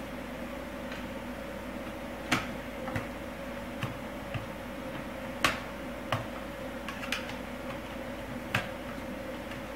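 Small screwdriver and screws clicking and tapping against the plastic screen bezel of a laptop as the screws behind the rubber tabs are taken out: about eight sharp, irregularly spaced clicks over a steady faint hum.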